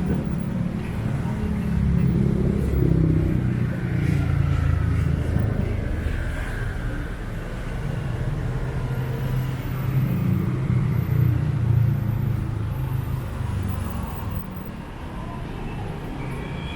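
Road traffic on a busy city street: motor vehicles running past with a steady low engine rumble.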